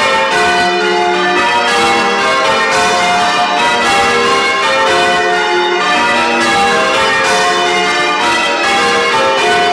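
Church bells rung in changes: a steady, even run of loud, overlapping bell strikes, one bell after another.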